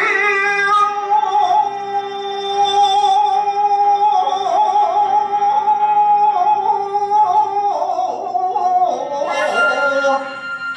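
A man chanting shigin (Japanese recited poetry): his voice holds one long note with a slow wavering vibrato for several seconds, then moves through lower, shifting notes near the end.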